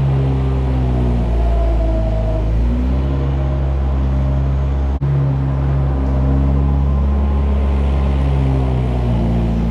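Skid-steer loader engine running close by as it scrapes manure along a concrete alley, its pitch dipping and picking up again as the load changes. The sound breaks off for an instant about five seconds in.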